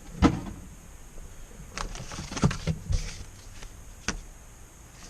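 Handling of a product box and its packaging: rustling with several sharp clicks and knocks, the loudest about a quarter second in.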